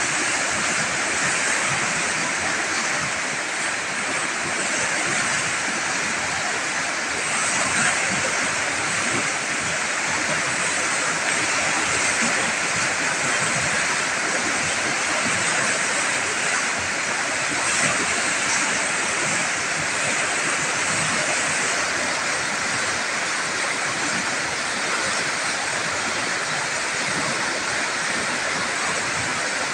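Muddy floodwater of a river swollen by heavy rain, rushing and churning over rapids: a steady, even rush of turbulent water.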